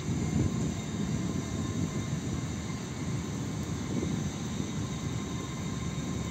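Steady low rumble that does not swell as an EG2Tv Ivolga 2.0 electric train draws slowly toward the platform; the train itself hardly stands out from the background noise.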